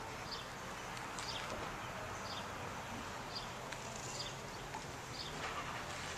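A small bird chirping, a short high chirp repeated about once a second, over a steady hiss of outdoor background noise.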